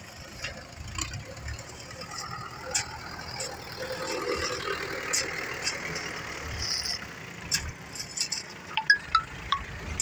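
Metal hand tools striking and scraping crushed stone, with scattered knocks and a few sharp clinks near the end. A vehicle passes on the road in the middle.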